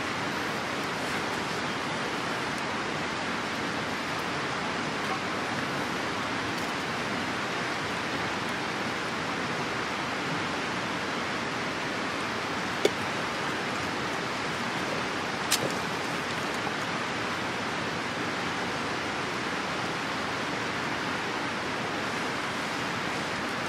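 Steady rushing outdoor noise, with two sharp clicks a few seconds apart around the middle.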